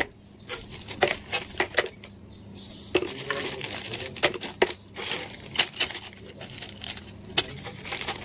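Plastic zip-lock bags of small parts crinkling and rustling as they are handled, with irregular small clicks and knocks of the parts.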